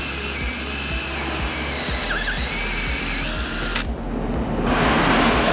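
Cordless drill turning a hole saw through a polyethylene tank wall, its motor whine wavering in pitch as the saw cuts. A little under four seconds in, the whine stops abruptly and a rougher rushing noise follows.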